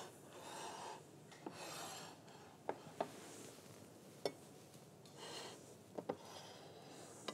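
Faint handling sounds of a dinner plate and food being arranged on a countertop: a few soft rubbing swishes and several light clicks of a plate and utensils touching the counter.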